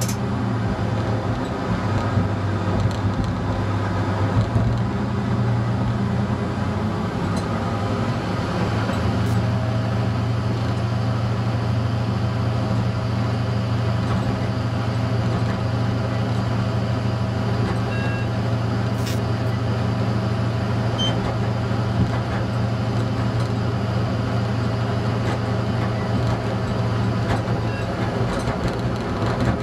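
ČD class 854 diesel railcar running along the line, heard from the driver's cab: a steady diesel engine drone with the running noise of the train, shifting slightly about four seconds in.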